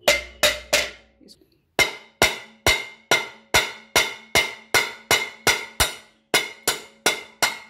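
A thin screwdriver is tapped point-down into the base of an upturned glass mug held under water, to chip a drainage hole slowly without cracking the mug. There are three quick sharp taps, a short pause, then a steady run of light taps at about two to three a second, with a faint ringing.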